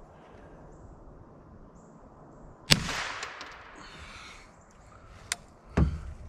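A single rifle shot about three seconds in, dying away over about a second, from a scoped rifle fired at a raccoon caught in a trap. A sharp click and then a low knock follow shortly before the end.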